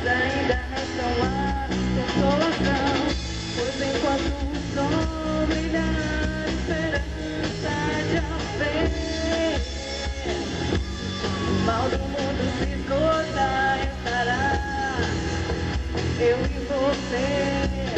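Rock song played by a full band, with drums and guitar under a melody line that bends in pitch.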